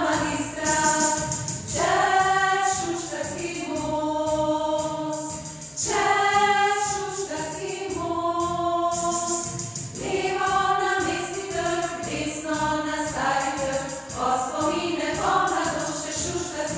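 A children's school choir singing a song, with instrumental accompaniment and a steady beat.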